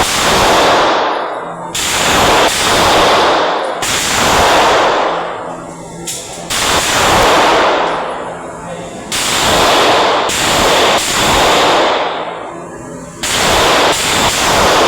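Gunshots at a firing range, fired one at a time about every two seconds, roughly six or seven in all. Each loud report dies away in a long echoing tail.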